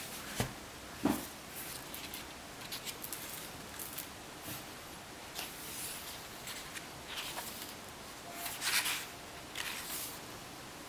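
A large hardback book handled on a wooden desk: two short knocks in the first second or so, then light rustling and page turning, with a louder page turn near the end.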